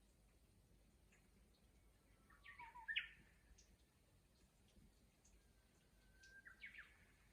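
Japanese bush warbler (uguisu) singing two song phrases, each a whistled note followed by a quick rising-and-falling flourish, the second with a long held whistle before the flourish. Faint short chirps sound in between.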